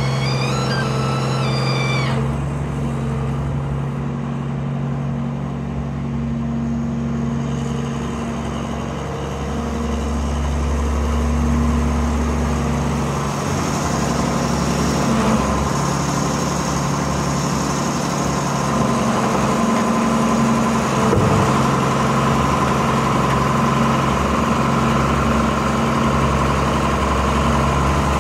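Old John Deere 690B excavator's diesel engine running as the machine swings and tracks, with a few high squeaks in the first two seconds and a steady high whine joining about halfway through.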